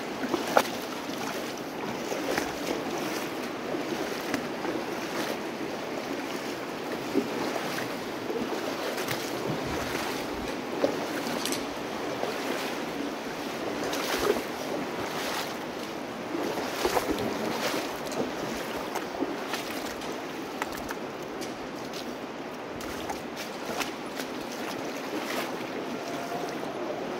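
The North Fork of the Virgin River running through a narrow sandstone canyon: a steady wash of shallow flowing water. Frequent short, sharp splashes and knocks sound close by at irregular moments.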